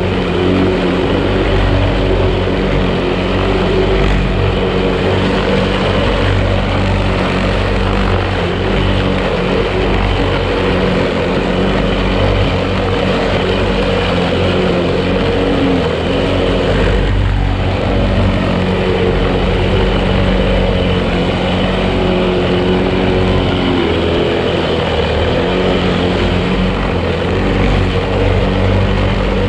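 Outils Wolf lawn mower engine running steadily under load through tall grass. Its pitch dips briefly twice, about halfway through and again later.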